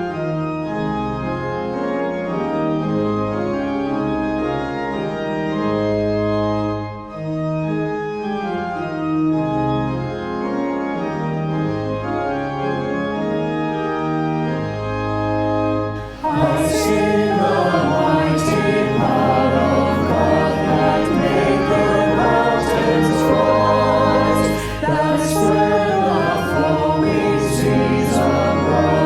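Organ playing held chords as an introduction; about halfway through, a group of voices comes in singing a hymn-like song with it, and the music gets louder.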